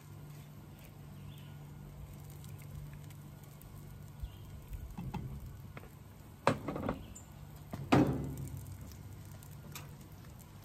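Pancakes sizzling quietly on a hot Blackstone 28-inch flat-top griddle over a steady low hum. Two loud sudden thumps come a little past halfway, about a second and a half apart.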